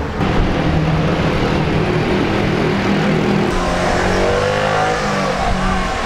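Small motor vehicles running close by in a narrow street, a small car and a motor scooter, with an engine's pitch rising and falling about halfway through.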